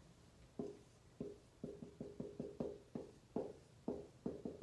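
Dry-erase marker writing on a whiteboard: a quick run of short strokes, each with a faint squeak.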